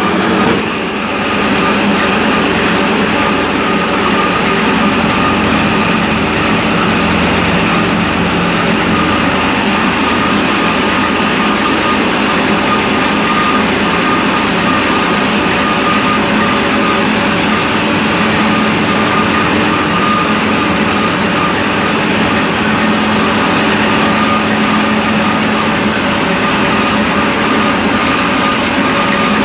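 Tractor-powered cotton ginning machine running steadily: the tractor engine drives the gin through its PTO shaft. A constant loud mechanical drone with a steady high tone through it.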